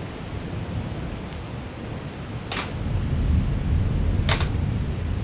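Thunder rumbling over steady rain, the rumble building in loudness from about halfway through. Two short sharp crackles stand out, one about halfway and one near the end.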